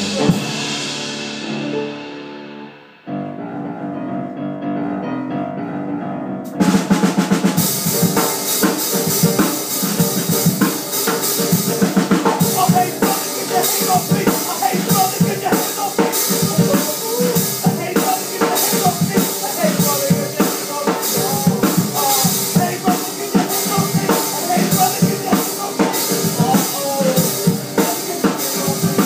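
A band playing an instrumental passage: a held chord dies away over the first few seconds, a quieter sustained part follows, then the drum kit and full band come back in about six seconds in and carry on with a steady, busy beat.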